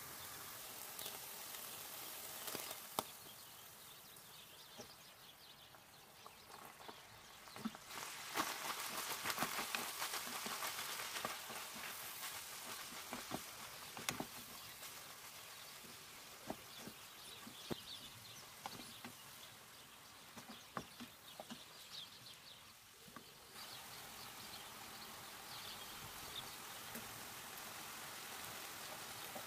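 Ground beef, then chopped onions, sizzling as they fry in a pan, with scattered clicks and scrapes of a wooden spoon stirring. The sizzle grows louder for a few seconds about eight seconds in.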